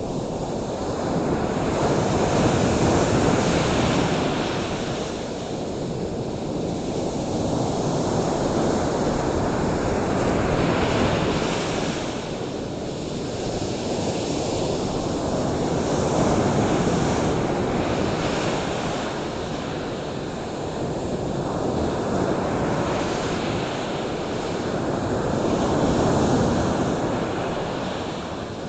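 Ocean surf washing onto a shore, a steady rush of water that swells and fades as waves come in every several seconds.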